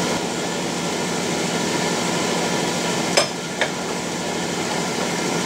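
Steady mechanical hum of shop machinery, with two sharp metal clinks a little after three seconds in, half a second apart, as the lathe's three-jaw chuck is handled.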